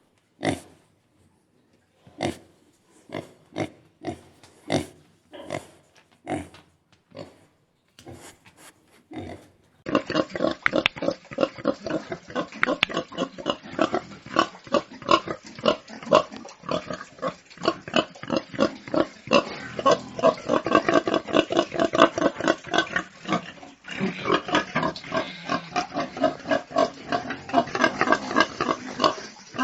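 Domestic pigs grunting. For about the first ten seconds the grunts are short and separate, roughly one a second with silence between them. Then there is a sudden switch to a dense, continuous stretch of rapid grunting, several grunts a second.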